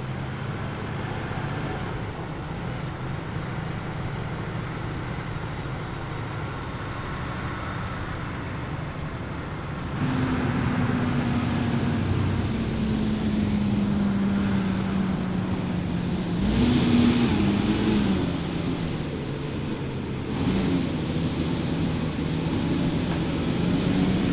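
Heavy haulage truck towing a transportable house, its diesel engine droning as it approaches and growing louder about ten seconds in, the engine note falling slowly. A short, louder rush of noise with a wobble in the engine pitch comes about two thirds of the way through.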